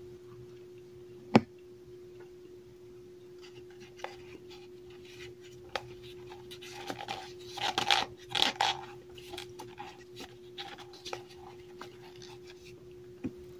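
Cornstarch being handled with a gloved hand and a cornstarch-caked metal can, giving scattered soft crunches and squeaks that grow busiest around the middle. There is one sharp click about a second and a half in. A steady faint hum runs underneath.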